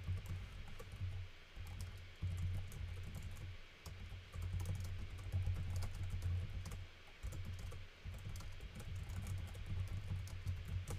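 Typing on a computer keyboard: quick, irregular keystroke clicks coming in runs with short pauses between them.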